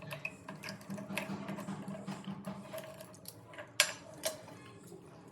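Small metal mechanical clicking and rattling, as of tap parts and tools being worked, over a low pulsing hum, with two sharp clicks about four seconds in, half a second apart.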